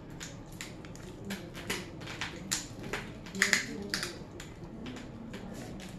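Crab shells being cracked and picked apart by hand: a quick, irregular run of sharp clicks and cracks, loudest a little past halfway.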